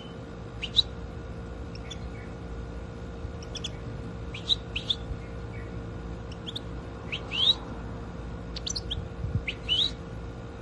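European goldfinch calling in short, quick chirps that rise in pitch, coming in scattered clusters of a few notes several times.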